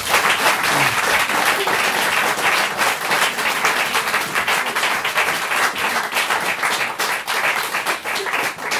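Audience applauding, many hands clapping in a dense, steady ovation.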